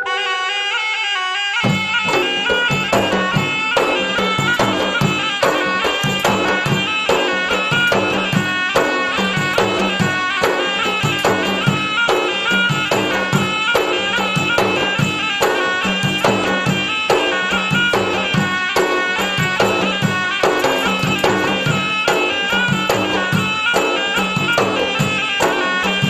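A short logo jingle, then background music that starts about a second and a half in: a traditional folk-style piece over a steady drone, with a melody line and a regular beat.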